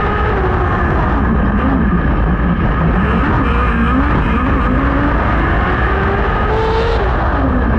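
Onboard sound of a 600cc micro sprint car's engine, revving up and down as the car goes through the turns, with other cars' engines close around it. The pitch climbs near the end, then drops sharply.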